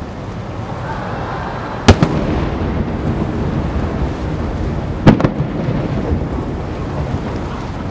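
Two aerial firework shells bursting, each a sharp boom followed by a rolling rumble: one about two seconds in, the other about five seconds in.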